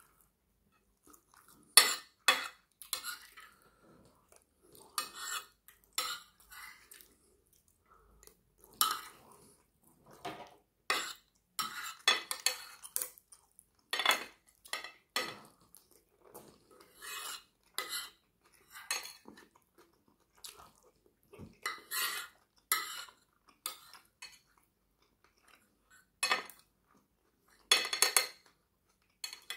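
Metal spoon and table knife scraping and clinking against a plate in short, irregular strokes, gathering up the last scraps of food.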